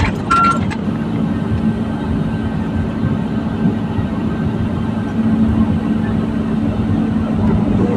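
Volvo EC210 excavator's diesel engine running steadily with a low hum. A reversing alarm beeps once just after the start.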